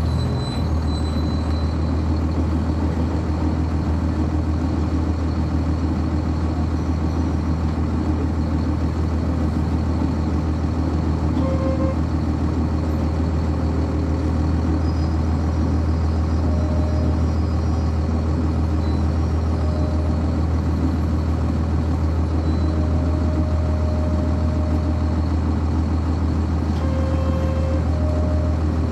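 Cummins ISC inline-six diesel engine of a 1999 Nova Bus RTS, heard from on board the bus, running at a steady, unchanging low note.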